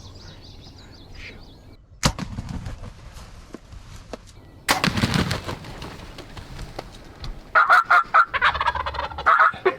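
Wild turkey gobbling close by: a rapid, rattling gobble near the end, with two sudden loud bursts earlier, about two seconds in and near the middle.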